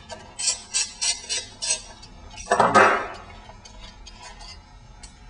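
Metal clutch plates of a Puch ZA50 moped transmission clicking and clinking against each other and the hub as they are lifted off: a quick run of light clicks, then a louder clatter about two and a half seconds in.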